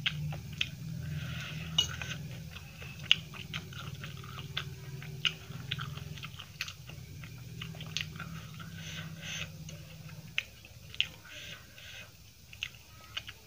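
Close-miked chewing of food, with many short sharp crunching clicks and wet mouth sounds.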